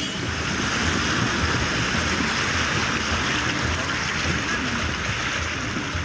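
Steady rush of flowing creek water, an even hiss with a low rumble underneath.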